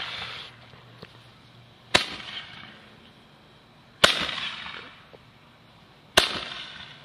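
A Roman candle firing from a homemade wooden gun with a metal barrel: three loud pops about two seconds apart, each trailing off in a fading hiss as a burning ball is shot out.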